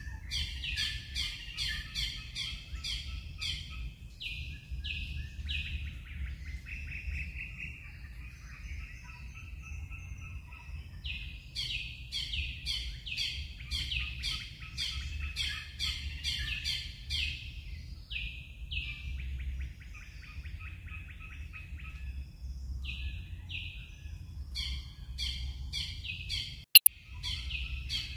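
Birds chirping in long, fast runs of short falling notes, pausing briefly now and then, over a steady low rumble. A single sharp click near the end is the loudest sound.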